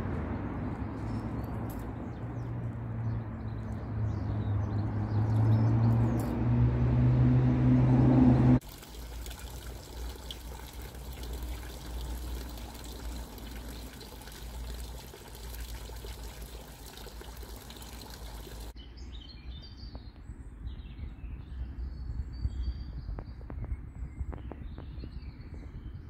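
Outdoor garden sound in three abruptly cut pieces. First a low hum that grows louder for about eight seconds and cuts off suddenly, then a quieter steady noise, and in the last third birds chirping over faint background noise.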